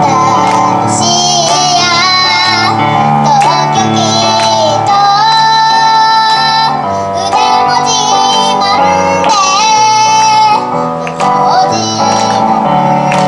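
Music: a young girl singing a song over instrumental accompaniment, holding some long notes.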